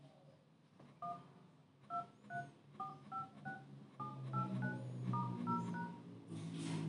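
Touch-tone keypad beeps from a Xiaomi Redmi 6A smartphone's dialer as the keys 1 to 9, star, 0 and hash are tapped in order: twelve short two-note beeps, roughly two to three a second, stepping up in pitch along each row of keys.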